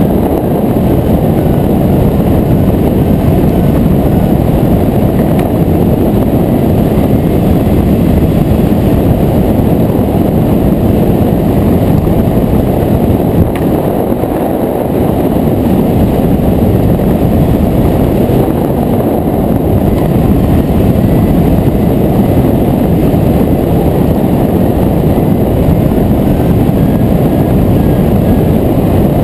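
Steady, loud wind rush on a GoPro microphone from the airflow of a hang glider in flight, deep and without a clear pitch, easing slightly for a moment about halfway through.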